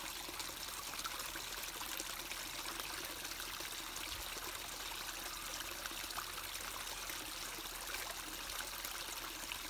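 Water trickling steadily into a small garden fish pond.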